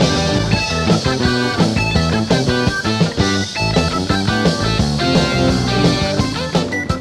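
Background rock music with guitar and drums, a busy full-band passage.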